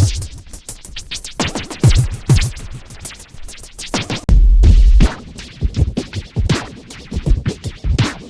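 Electronic drum-machine beat with a run of sharp, uneven drum hits and a long, deep bass boom held for under a second a little past halfway.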